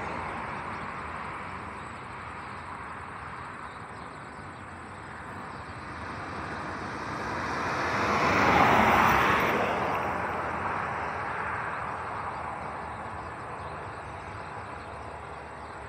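Jet airliner's engines running as it rolls out along the runway after landing. The noise swells to a peak about halfway through as it passes, then fades.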